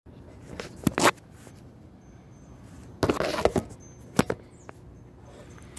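A few sharp knocks and clunks, a pair about a second in and one more about four seconds in, with a short scuffling rustle at about three seconds.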